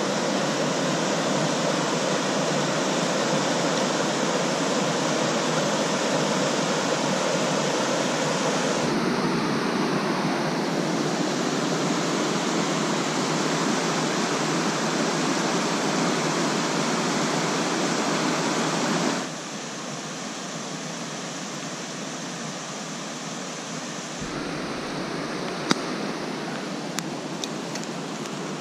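River rapids rushing steadily over boulders, loud and unbroken, dropping to a quieter rush about two-thirds of the way through. Near the end a few sharp snaps come from a campfire.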